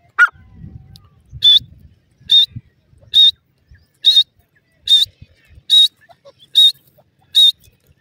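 Francolin chicks peeping: a loud, high single note repeated eight times at an even pace, a little over once a second, after a short falling call at the start.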